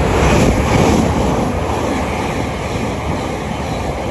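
Thameslink Class 700 electric multiple unit running through the station close by: a loud, steady rush of wheels and air, heaviest in the first second, with wind buffeting the microphone.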